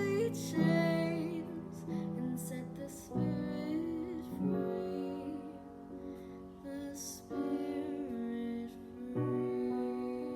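Slow, gentle piano music, chords held and changing every second or two.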